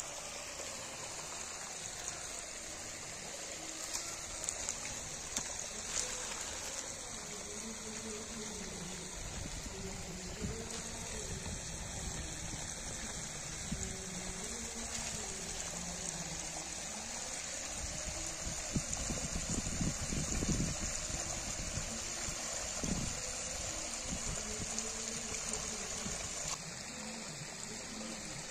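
Shallow water running over a sandy, pebbly bed: a steady rushing, trickling flow. It swells with louder low rumbling for a few seconds past the middle.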